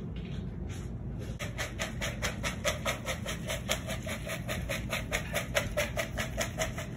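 Popcorn being shaken hard in a container: a fast, even rattle of about five shakes a second, starting about a second and a half in.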